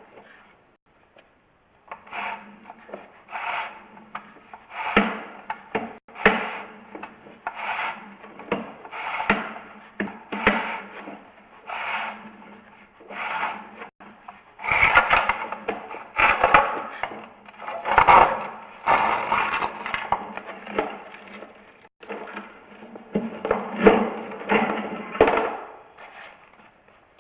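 Sewer inspection camera rig scraping in rhythmic strokes, about one every 0.7 s at first, then faster and louder after the middle, as the push cable and camera head rub along the pipe. A faint steady hum runs underneath.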